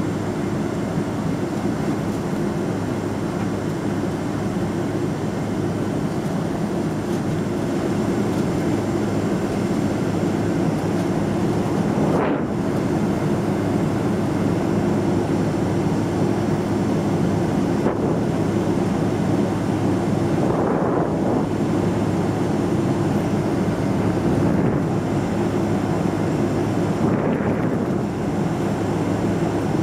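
Steady rumble of a Boeing 777-200ER's GE90 engines and airflow, heard inside the cabin, growing a little louder a few seconds in, with a few brief swells.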